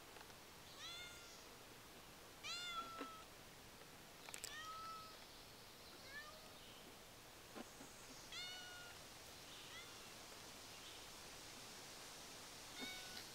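A cat meowing over and over: about six faint, short meows that rise and fall in pitch, spread through the stretch. It is crying at the feeding box, where the other cats are eating and it has not climbed up to the food.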